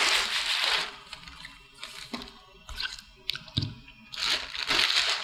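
A plastic carrier bag crinkling as it is opened, a few scattered small clicks, then about four seconds in a crackly rush of used Sofnolime soda-lime granules pouring out of a rebreather scrubber cartridge into the bag.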